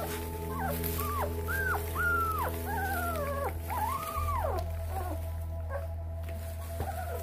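An 18-day-old Lycan Shepherd puppy whining in a string of short, high-pitched cries, each rising then falling, about two a second, with a pause shortly before the end.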